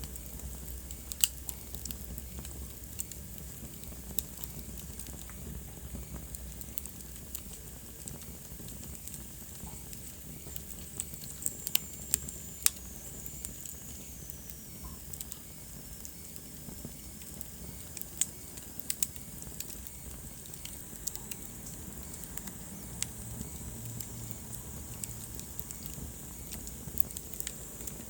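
Wood fire crackling in a fireplace: irregular sharp pops and snaps over a steady low rumble. About twelve seconds in, a faint high whistle slides down in pitch for a few seconds.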